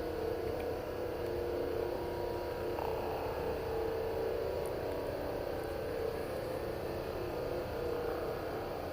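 An unexplained droning hum coming from the sky: a steady sound made of several held tones, with one higher tone shifting slightly about three seconds in.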